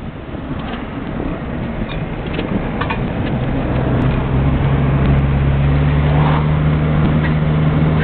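Mitsubishi Colt's engine heard from inside the cabin, droning at steady revs and growing louder over the first few seconds before holding level, over road and wind noise.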